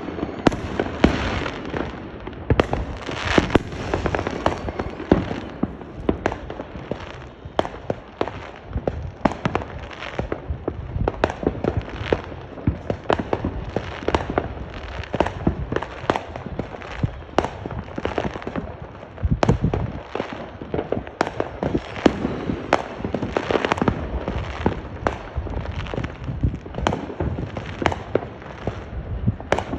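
Fireworks going off continuously: a dense, irregular run of sharp bangs and pops, several a second, over constant crackling.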